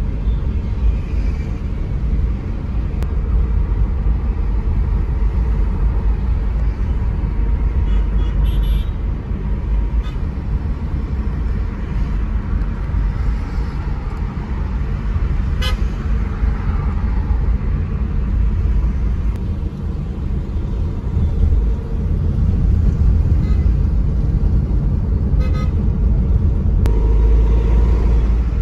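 Steady low road rumble of a car driving in city traffic, with car horns tooting now and then, most clearly near the end.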